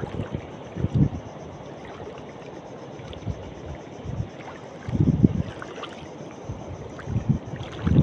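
Wind on the phone's microphone over shallow seawater: a steady hiss, with short low rumbling gusts about a second in, around five seconds in, and twice near the end.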